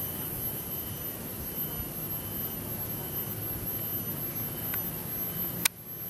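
Steady humming drone of a large honey bee colony clustered over its nest. Near the end a single sharp click cuts in, and the sound dips briefly after it.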